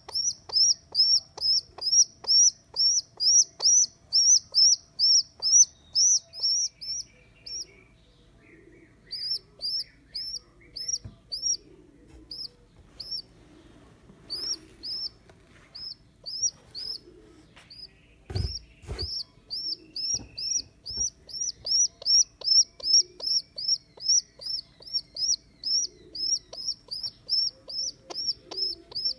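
Baby pigeon (squab) squeaking: a rapid series of short, high-pitched peeps, about three a second, pausing briefly now and then. A couple of low knocks come about two-thirds of the way through.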